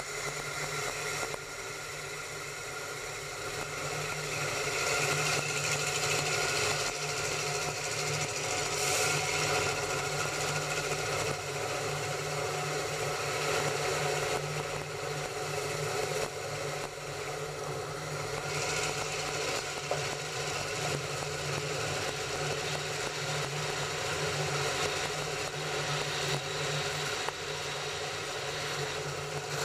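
Electric train running along the track: a steady mechanical whirr and hiss of the moving train, with several steady whining tones held throughout, growing a little louder about four seconds in.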